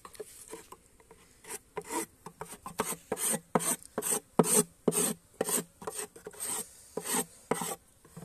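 A flat metal blade scraping the wooden floor of an empty beehive box in short rasping strokes, about two a second, starting about a second and a half in, as wax and debris are scraped off to clean the box.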